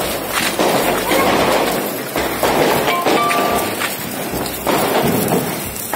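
Handheld Diwali sparklers (phuljhari) burning with a loud, continuous fizzing and crackling hiss.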